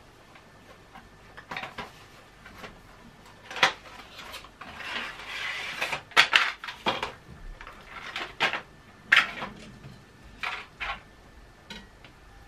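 Kitchen clatter: dishes, utensils and small items knocked and set down on a countertop in a string of sharp clicks, with a brief rustling stretch near the middle.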